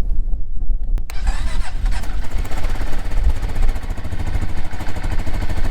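Quad bike (ATV) engine running with a steady low throb, coming up much louder about a second in after a sharp click.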